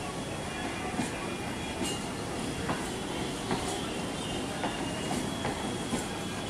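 Electric multiple-unit local train rolling slowly past, a steady rumble with wheels clacking over rail joints about once a second, and a faint high wheel squeal.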